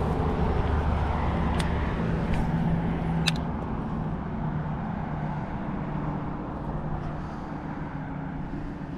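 Low engine hum of a motor vehicle, slowly fading away, with a few sharp clicks in the first few seconds.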